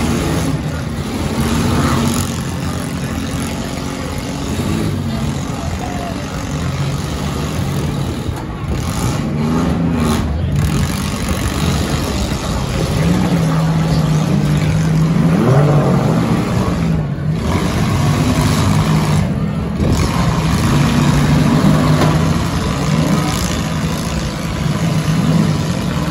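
Several demolition derby cars' engines running and revving together, with a rev that rises in pitch a little past halfway.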